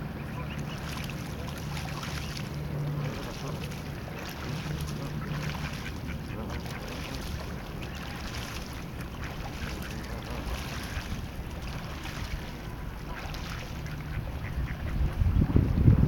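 Canada goose bathing: repeated splashes as it dips and throws water over its back, with ducks quacking in the background. Near the end, wind buffets the microphone.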